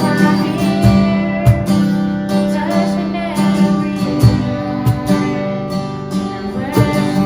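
Live worship band music: strummed acoustic guitar over a held low note, with drum hits and a singing voice coming in at times.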